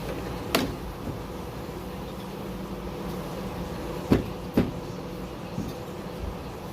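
Sharp clicks and knocks of door and window-regulator parts being handled: one about half a second in and a pair close together about four seconds in, over a steady hum.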